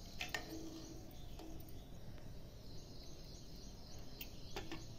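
Faint metallic clinks of a ladle against a pressure cooker, twice near the start, then the cooker's lid knocking against the rim a few times near the end, over low room noise.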